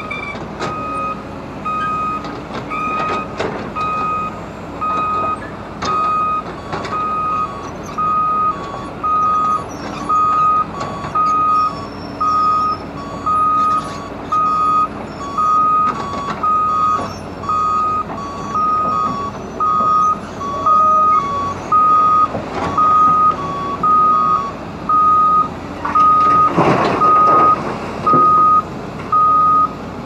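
A vehicle reversing alarm beeping steadily about once a second, growing louder toward the end, over heavy diesel machinery running. About 26 seconds in there is a brief loud rush of noise.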